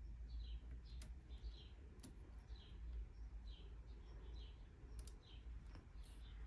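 Quiet room tone with a low hum, broken by a few sharp clicks of a small screwdriver and tweezers on plastic model-kit parts, while faint short high chirps repeat about every half second to second.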